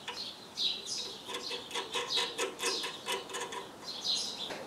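Small birds chirping repeatedly in short falling calls, over light metallic clicks and clinks as a steel bolt and nut are handled against a drilled steel gauge plate in a vise.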